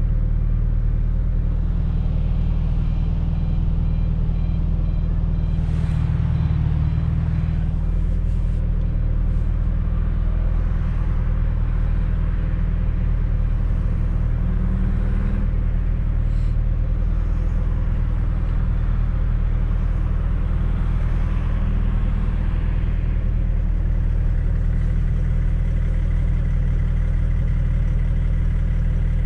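Fiat Coupe 2.0 16V Turbo's four-cylinder engine running at a steady pace under way, with tyre and road noise, heard from inside the cabin. A few short clicks come through now and then.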